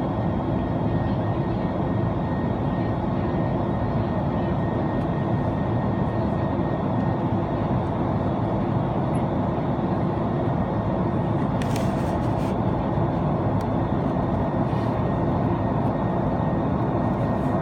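Steady jet engine and rushing-air noise inside the cabin of an Airbus A330-300 in flight, with a few faint clicks about two-thirds of the way through.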